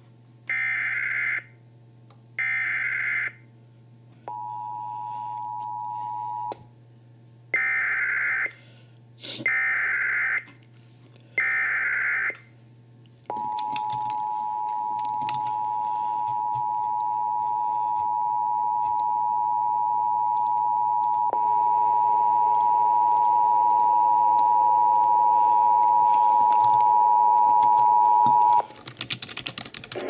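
Emergency Alert System alert opening: three short warbling SAME header data bursts, a brief two-tone beep, three more data bursts, then the two-tone attention signal (853 and 960 Hz) held for about fifteen seconds. The attention signal grows steadily louder and turns harsher about two-thirds of the way through. It heads a Child Abduction Emergency (Amber Alert).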